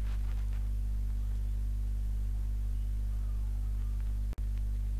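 Steady low electrical mains hum with a stack of higher overtones, picked up by the recording chain. It cuts out for an instant about four seconds in.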